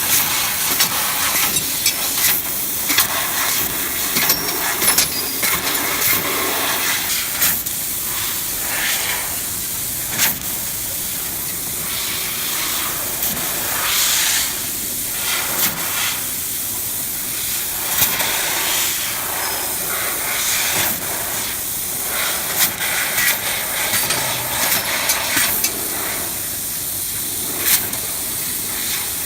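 Fiber laser cutting machine cutting thin stainless steel sheet: a steady hiss from the cutting head, swelling and easing every second or two, with many short sharp clicks and pops.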